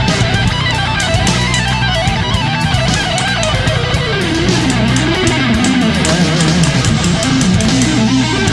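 Background rock music led by electric guitar, with a bending melodic lead over a steady bass and rhythm.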